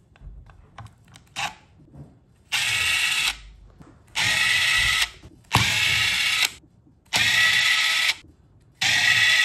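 DeWalt Atomic cordless driver run in five short bursts of about a second each, backing out the screws that hold an Iceriver AL0 crypto miner's circuit board, with a few light handling clicks before the first run.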